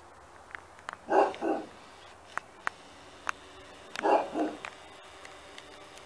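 A dog barking: two barks in quick succession about a second in, and another pair about four seconds in.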